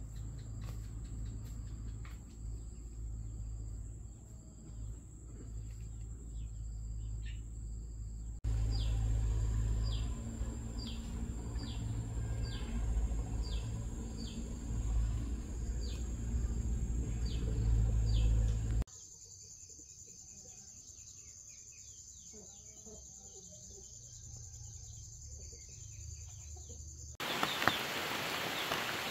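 Forest ambience in several cuts: a steady high insect drone with scattered clicks, then a short falling call repeated about once a second over a low rumble, then quieter insect sounds. Near the end, steady rain.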